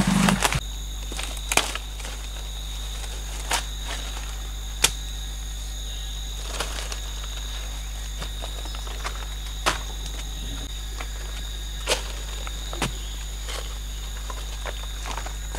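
A bamboo stick jabbing and prising into a bank of clay soil, a sharp knock every second or few, with a few footsteps at the start. A steady high insect drone runs underneath.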